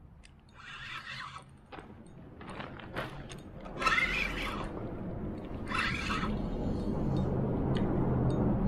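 Fishing reel drag buzzing in three short runs, the middle one loudest, as a hooked salmon pulls line; a low rumble grows louder in the second half.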